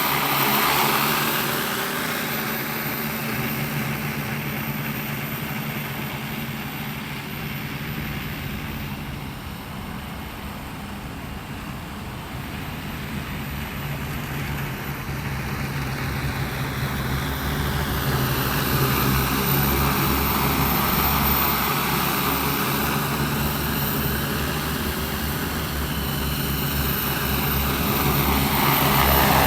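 Rotors of a 15-litre agricultural spraying multicopter drone whirring steadily in flight. The sound fades about a third of the way in and grows louder again toward the end, with the rotor pitch gliding down and then back up as it passes.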